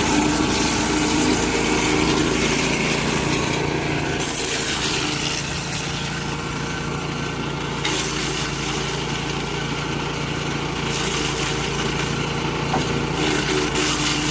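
Wood chipper running steadily on its small engine, with a rough, hissing grind of wood being chipped over it that changes in strength about four, eight and eleven seconds in.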